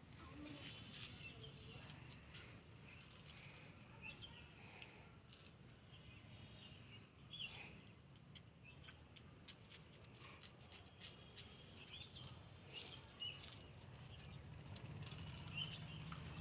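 Near-silent outdoor ambience with faint scattered bird chirps and a few small clicks over a low steady hum.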